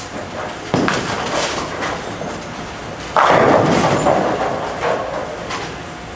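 Bowling alley lanes: balls rolling with a steady rumble and pins clattering. A sharp knock comes just under a second in, and a louder crash of pins about three seconds in.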